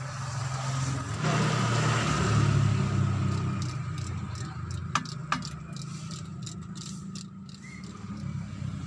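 Low motor-vehicle engine rumble that swells over the first few seconds and then eases, with two sharp clicks about five seconds in.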